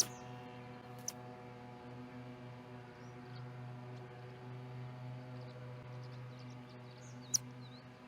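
An osprey sneezing in short sharp bursts: the loudest right at the start, a smaller one about a second in, and another near the end. A steady low hum runs underneath, and faint high chirps come in the second half.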